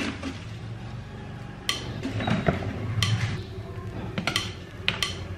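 A plastic spoon knocking and scraping in a plastic mixing bowl, with a few sharp clicks roughly a second apart.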